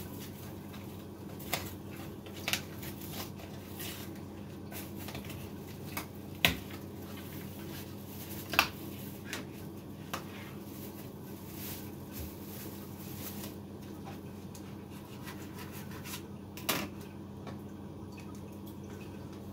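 Kitchen work while cooking: a handful of sharp clicks and knocks from dishes and utensils being handled, spaced irregularly over a steady low hum.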